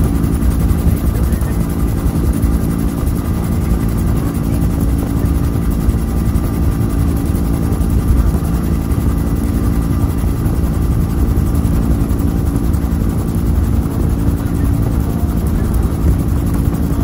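Bell UH-1 "Huey" helicopter in cruising flight, heard from inside the cabin: its turbine engine and two-blade main rotor running loud and steady.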